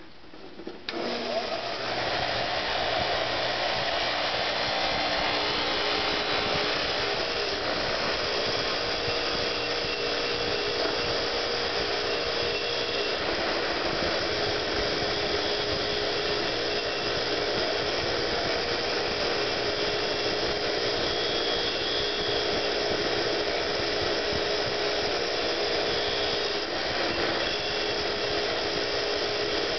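Bench grinder starting up about a second in, then running steadily with its wire wheel grinding rust off a steel hatchet head.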